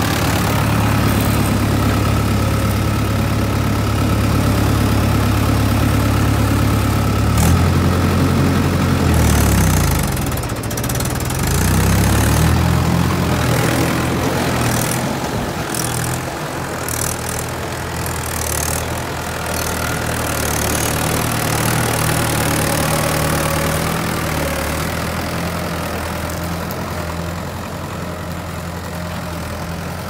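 Mahindra 585 DI tractor's diesel engine running steadily. A few seconds in, its note dips and rises several times, then settles again for the rest of the time.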